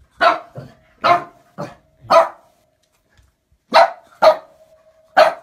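Small dog barking sharply in two bursts: five barks, a pause of about a second and a half, then three more.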